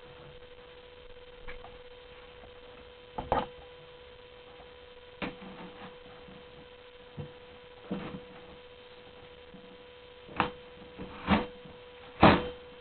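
A steady electrical hum, with about seven scattered knocks and clicks of handling noise, the loudest near the end.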